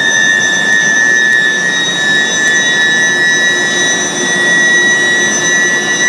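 IGBT induction heating furnace running, giving a steady high-pitched whine over a rushing background noise; near the end the whine splits into two close pitches.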